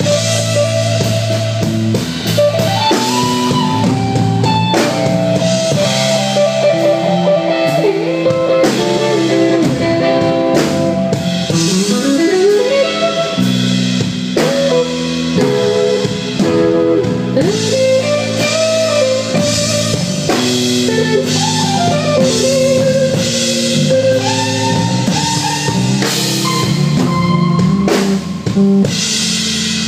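A live blues band with an electric guitar playing a lead solo over bass and drums. The guitar line slides up in pitch about halfway through and shakes a held note near the end.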